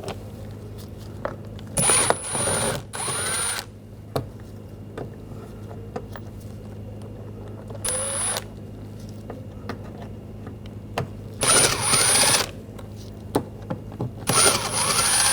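Cordless power screwdriver with a Phillips bit backing out door-panel trim screws, whirring in about five short bursts of under a second each, with small clicks between them.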